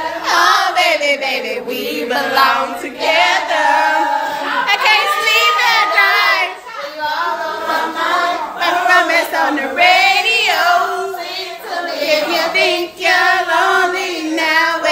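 A high-pitched singing voice with strong vibrato, sung continuously with little bass beneath it.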